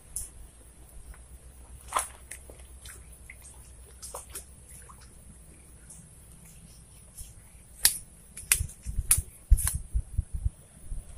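Scattered small clicks and taps, then from about eight seconds a quick run of knocks and low thumps as a fishing pole is lifted and a small climbing perch is pulled from the water.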